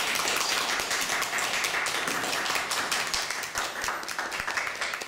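Audience applauding, a dense patter of clapping that thins out and fades near the end.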